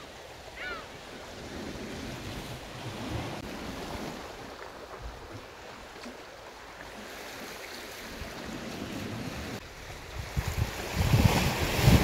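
Sea waves washing on the shore under a steady wind. The noise swells and eases, and a gust buffets the microphone near the end. A couple of short high chirps sound just at the start.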